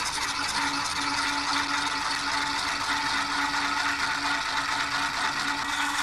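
Homemade electric motor built from a dog food can, nails and a hacksaw blade, with a cork commutator, running after being switched on: a steady, fast rattling buzz from its wire contacts brushing over the brass commutator strips, with a low steady hum underneath.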